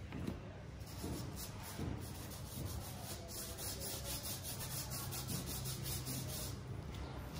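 Fingertips rubbing loose coloured sand into the sticky surface of a sand-art card. Fast, even back-and-forth scratchy strokes start about a second in and stop shortly before the end.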